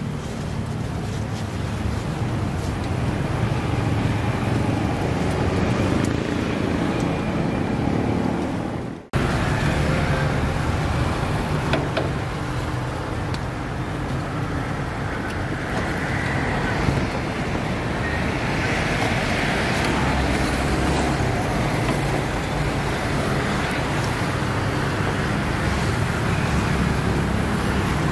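Steady road-traffic noise, a continuous rumble and hiss, cutting out abruptly for a moment about nine seconds in.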